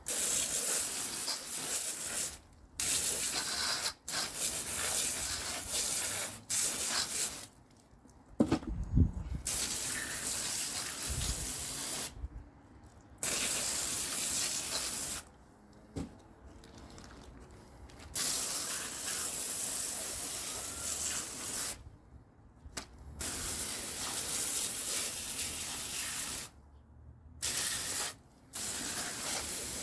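Running water spraying and hissing, switched on and off many times in stretches of a few seconds, as mud is rinsed off freshly caught fish.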